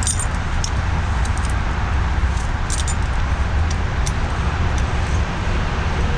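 Steady low background rumble, with a few light clicks and taps of small metal brake parts being handled.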